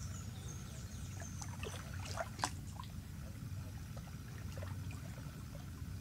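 Flooded rainforest ambience: a steady low rumble with a thin high whistle during the first two seconds, a faint steady higher tone, and a few short clicks and taps about two seconds in.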